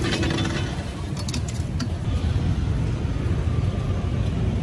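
Steady street traffic rumble, with a few light clinks about a second in.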